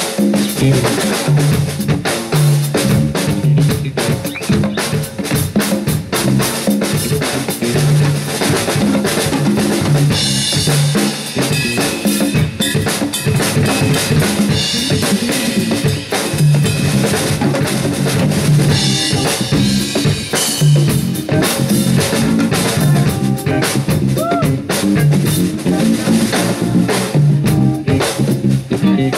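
Live band playing an instrumental jazz-funk groove: congas and drum kit drive a steady beat under a repeating bass line, with electric guitar.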